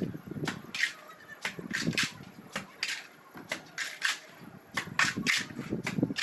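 Plastering trowel working cement mortar on a wall: a run of short scraping and slapping strokes, irregular, about two a second.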